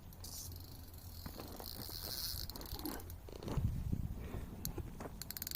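Faint rustling and a low wind rumble on the microphone while a carp is played on rod and reel, then a rapid run of ticks near the end: the reel's drag giving line as the fish runs.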